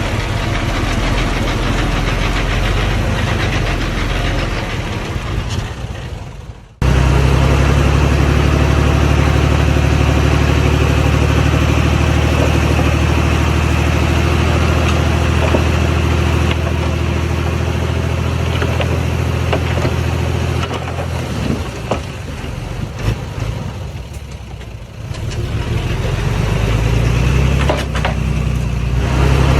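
Heavy earthmoving machine's diesel engine running steadily, with an abrupt break about seven seconds in. The engine eases off for a few seconds past the middle, then picks up again, rising in pitch near the end.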